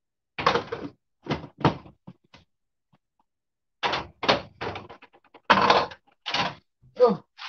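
Glass pot lids knocking and clattering against a soup pot on the stove as they are handled and tried on. The knocks come in irregular clusters, a few single ones early, then quicker runs.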